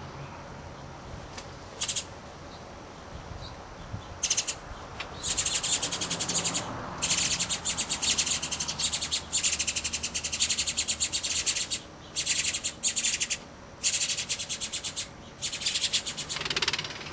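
Goldfinch nestlings begging at the nest: rapid, high-pitched cheeping. A short burst comes about two seconds in, then from about four seconds on runs of cheeping follow each other, broken by short pauses.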